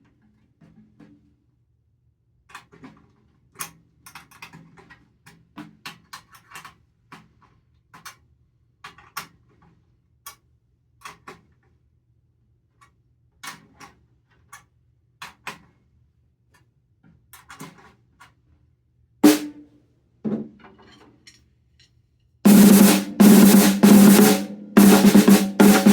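Faint scattered taps and clicks, then two single strokes, then, near the end, loud rapid strokes and rolls on a Premier snare drum fitted with new AJAX Vintage Series snare wires. The drum is being played to test the new wires' sensitivity and response.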